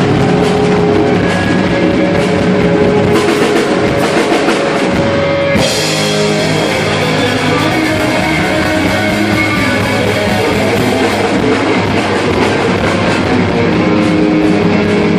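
Live rock music: an electric guitar playing a solo over a drum kit, with a loud crash about five and a half seconds in.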